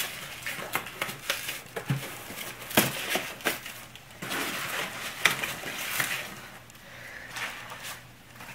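Foam packing peanuts rustling as hands scoop them out of a cardboard box, with scattered sharp clicks and light knocks against the cardboard.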